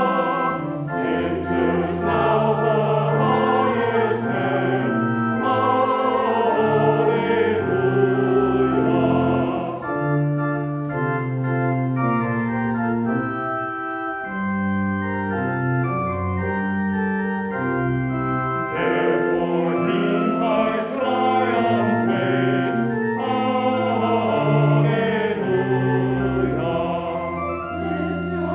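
Church choir singing a hymn with organ accompaniment. For several seconds in the middle the voices drop out and the organ plays alone in held chords, then the choir comes back in.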